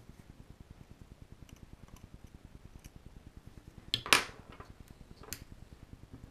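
A few small metallic clinks and clicks as hand tools and small metal parts are handled on a desk. The loudest comes about four seconds in, and one more follows just over a second later.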